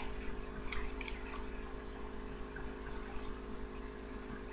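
A couple of light clicks, then fainter ticks, from a small plastic medicine syringe being handled and pulled apart, over a steady low hum.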